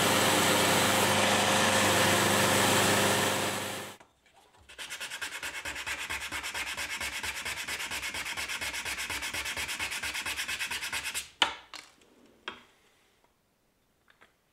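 An electric power tool runs steadily and cuts off about four seconds in. Then come quick, regular back-and-forth strokes of hand sanding on wood, several a second, for about six seconds. A few sharp knocks follow as the work is set down.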